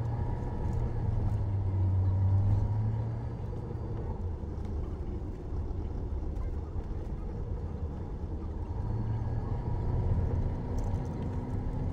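Car engine and road noise heard from inside a moving car, a steady low rumble. It is louder for the first few seconds and again about nine to eleven seconds in.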